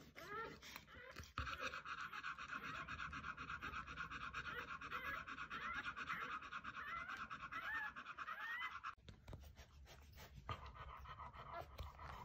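English springer spaniel panting fast and hard while whelping, mouth open. The panting stops suddenly about nine seconds in and picks up again more faintly a moment later, with faint high squeaks from her newborn puppies.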